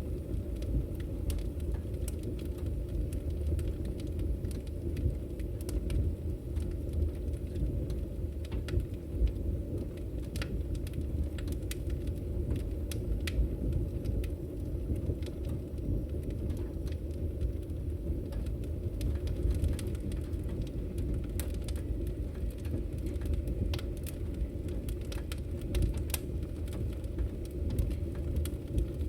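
Fire burning in an open fireplace: a steady low rumble of flames with many irregular sharp crackles and pops.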